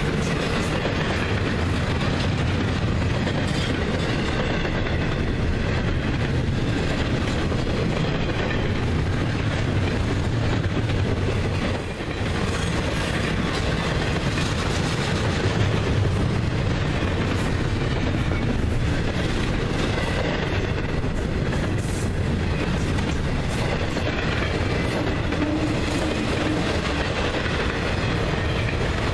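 Florida East Coast Railway intermodal freight train passing at speed: double-stack container well cars and trailer flatcars running by in a steady noise, with the wheels clacking on the rails. The sound dips briefly about twelve seconds in.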